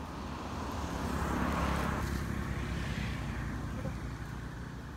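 A motor vehicle passing by, its sound swelling to a peak about a second and a half in and then fading away.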